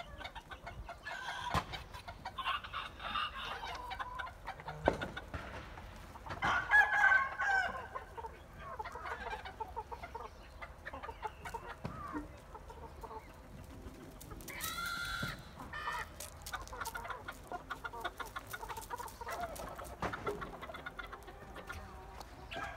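Chickens clucking and calling, in scattered short calls, the loudest about seven seconds in and a higher call about fifteen seconds in.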